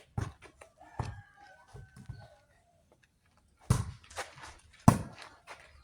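A rooster crowing faintly in the background, one drawn-out call about a second in, among several sharp, loud thumps, the loudest a pair near the end.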